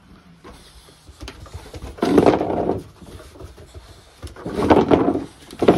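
Boxer puppy growling in two short rough bursts, about two seconds in and again near the end, while it bites and tugs on a rag.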